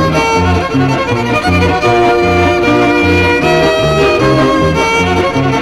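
Old-time dance band playing a reel: a fiddle carries the melody over a steady, alternating bass line of about two notes a second.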